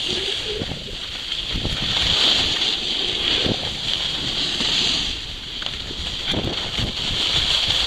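Wind rushing over the microphone of a skier moving downhill, with skis hissing and scraping over packed snow in irregular strokes.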